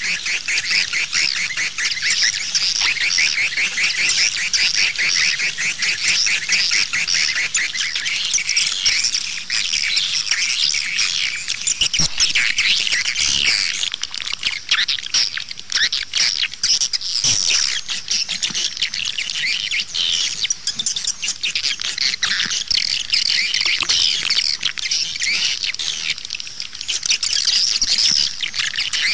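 Recorded edible-nest swiftlet calls: a dense, unbroken chatter of rapid twittering chirps, the 'outside' lure call played to draw swiftlets into a bird-nest house.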